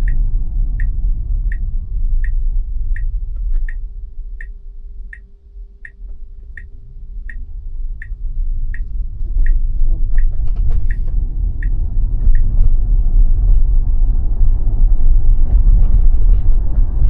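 Tesla's turn-signal indicator ticking in the cabin, about one and a half ticks a second, stopping about twelve seconds in as the left turn is finished. Under it runs the car's road rumble, which drops as the car slows for the turn and builds again as it pulls away.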